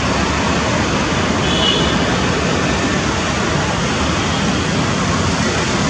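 Twin-turboprop ATR airliner's engines heard from a distance on the takeoff roll: a steady rushing noise, with a brief high chirp about a second and a half in.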